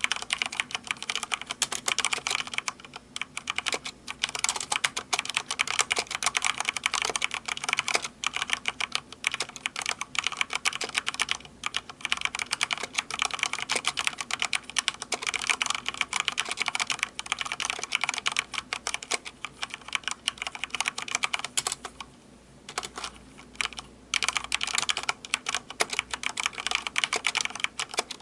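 Fast, continuous typing on a Corsair K70 Rapidfire mechanical keyboard with Cherry MX Speed switches: a dense stream of key clicks and bottom-outs, broken by a couple of short pauses a few seconds before the end.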